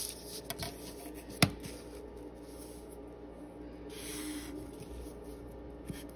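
Paper and drawing-tool handling on a desk: one sharp tap about a second and a half in, as a ruler is set down on the paper, then soft rubbing against the paper.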